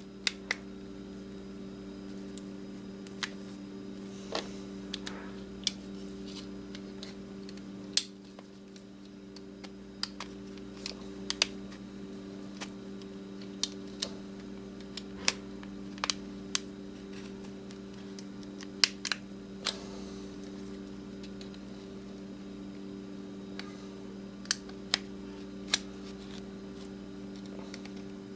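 Small sharp clicks and taps, irregularly spaced, as the thin metal frame of a Garmin 55LM GPS's LCD screen is pressed and snapped back into place by hand, over a steady low hum.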